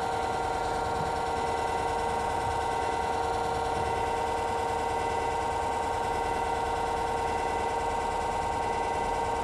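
Brushless DC electric boat motor (Motenergy) running steadily at cruise with a constant whine made of several steady tones. The whine comes from its square-wave controller, which makes the motor much noisier than a sine-wave controller would.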